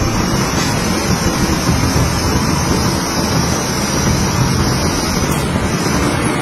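Heavy construction machinery's diesel engine running steadily, a dense, loud rumble, with a thin high whine that stops about five seconds in.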